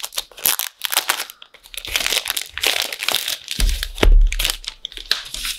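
Clear plastic wrapping crinkling as it is peeled off a notebook package by hand, in irregular crackles. A dull thump comes about four seconds in.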